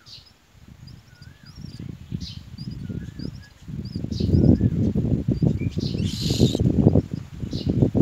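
Rustling and crackling at a common myna nest as the adult leans in to its chicks, growing louder about four seconds in, with a short raspy hiss near six seconds. Faint chirps and a repeated warbling call from other birds sound behind it.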